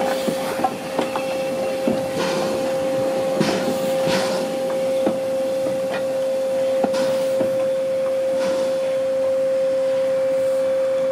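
Air compressor on Ivatt Class 2MT steam tank locomotive 41298 working as it stands: a steady pitched hum under irregular puffs of hiss and light knocks, about one a second.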